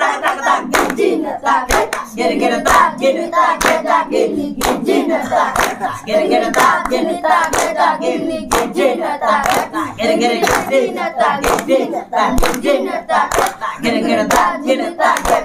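A group of children chanting drum syllables by mouth in unison (mukher bajna, spoken Chhau dance drumming), clapping their hands to keep the beat.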